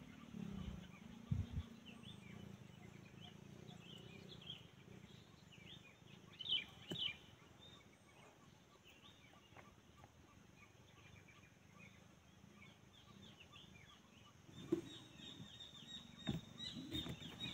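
Faint outdoor bird chirping: many short calls from birds in the trees, coming more thickly over the last few seconds, with a few soft knocks scattered through.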